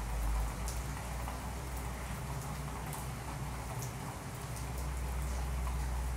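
Steady rain-like noise: an even hiss with scattered drip-like ticks over a low rumble.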